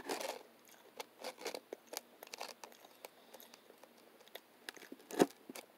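Knife and fork cutting food on a paper plate: scattered soft scrapes and clicks of the cutlery, with one sharper knock about five seconds in.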